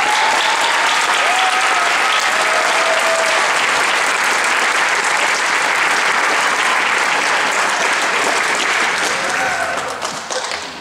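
Audience applauding, a sustained round of clapping with a few voices calling out in it, fading near the end.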